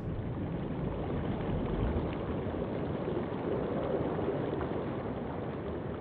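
Breaking surf churning over rocks: a deep, steady rush of turbulent water.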